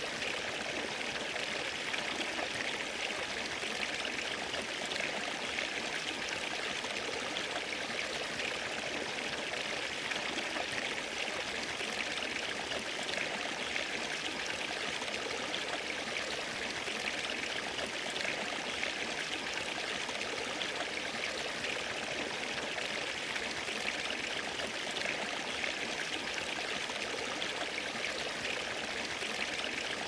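Small rocky stream trickling and splashing in a little cascade between boulders into a shallow pool: a steady, unbroken flow of water.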